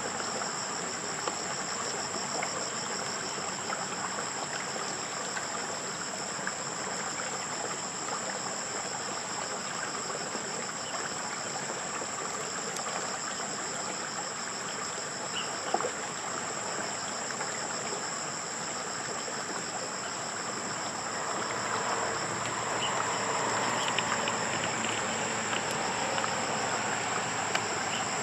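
Insects trilling in a steady, high-pitched chorus. There is a sharp click about sixteen seconds in, and a broader noise grows louder over the last seven seconds.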